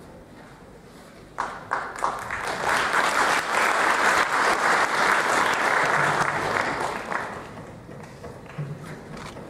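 Audience applauding. It starts with a few separate claps about a second and a half in, swells into full applause, and dies away after about seven seconds.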